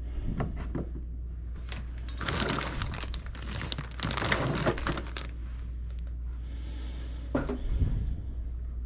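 Rustling and crinkling as items are picked up and handled off a plastic shelf unit, in two bursts of about a second each. A sharp knock and a couple of dull thumps follow near the end, over a low steady hum.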